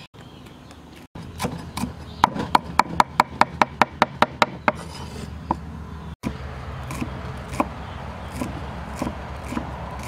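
Steel cleaver chopping on a wooden chopping board: a fast, even run of sharp chops, about five a second, in the middle, then slower, softer chops near the end as red chillies are chopped.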